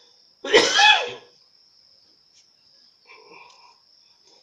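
A man coughs once, clearing his throat, about half a second in. A faint steady high-pitched whine runs under it.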